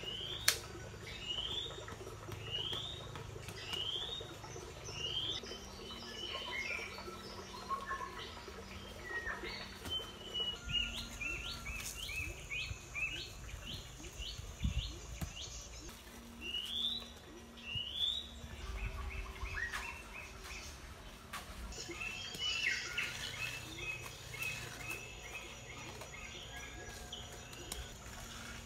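Birds chirping and singing: repeated short rising whistled notes and quick runs of notes, from more than one bird. A sharp knock about half a second in.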